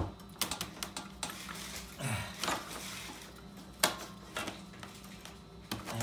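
Scattered light clicks and taps of parts being handled and fitted on a minibike's chain tensioner, with one sharper click a little before four seconds in.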